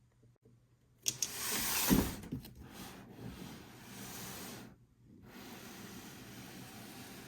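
Hissing, rubbing friction noise from handling toy packaging, in two stretches: the first starts sharply about a second in and is loudest near two seconds, and the second follows a short break near five seconds.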